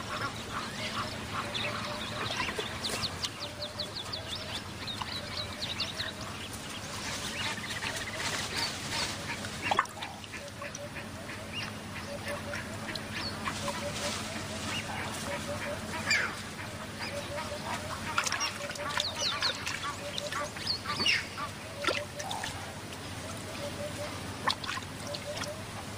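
Many wild birds calling together: quick high chirps and trills over series of short, lower repeated notes, with a single sharp click about ten seconds in.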